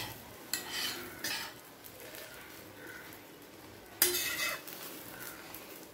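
Steel spatula scraping on an iron dosa griddle as a bread omelette is turned and folded, over a light sizzle: two short scrapes in the first second and a half, and a louder one about four seconds in.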